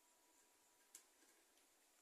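Near silence: room tone, with one faint click about halfway through.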